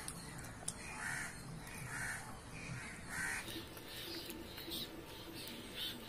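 Crows cawing repeatedly, several short caws about a second apart.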